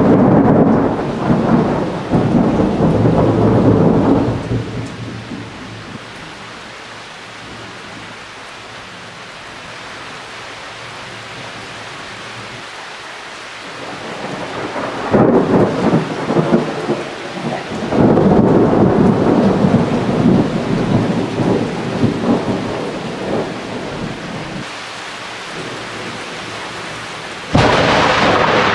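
Thunder: a loud clap right at the start that rumbles on for about four seconds, a sharp crack about halfway through followed by rolling rumbles for several seconds, and another sudden clap near the end. Between the claps a steady hiss of rain.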